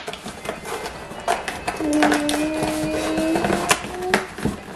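Cardboard box and plastic packaging being opened and handled, a run of clicks and crackles. In the middle a voice hums one held, steady note for about a second and a half, then a shorter one.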